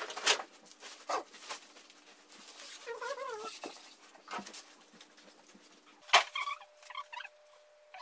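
Handling noise as a black refrigerator is lifted out of its plastic wrapping: scattered sharp knocks and clicks, with a short wavering squeak about three seconds in.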